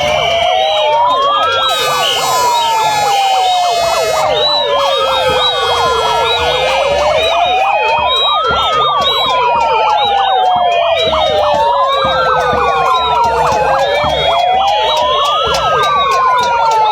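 Many sirens wailing over one another, the noisemakers of a noise protest. The loudest rises and falls slowly, peaking about every seven seconds, while many faster rising and falling wails and higher chirping tones run on top of it.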